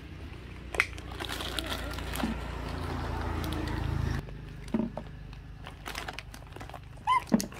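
Plastic snack bag crinkling as hands pull it open, over a low rumble that builds and then cuts off about four seconds in. A short high squeak comes near the end.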